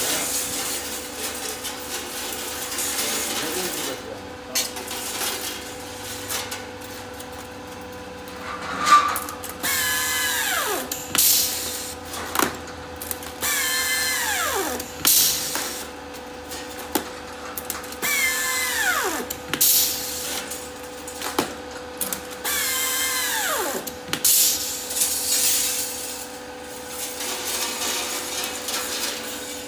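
Handheld pneumatic strapping tool tensioning and sealing strap around a compressed textile bale, four times. Each run is a whirring burst that ends in a falling whine as the tool spins down. A steady hum and some clicks of handling lie underneath.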